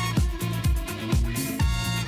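Background funk music with a steady, danceable drum beat, about two kick-drum hits a second, under a bass line and other instruments.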